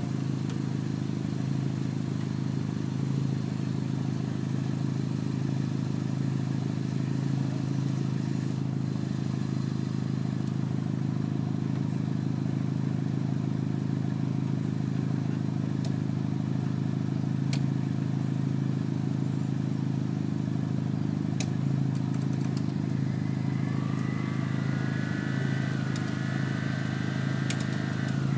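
Engine running steadily at idle, an even drone, with a few sharp ticks in the second half and a faint rising whine near the end.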